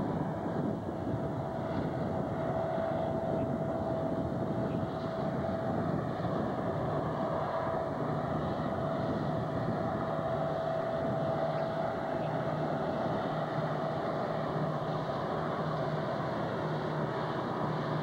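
Diesel locomotives on a loaded coal hopper train running steadily as they draw closer, a low engine drone with a thin steady whine over it, mixed with the rumble of the passing hopper cars.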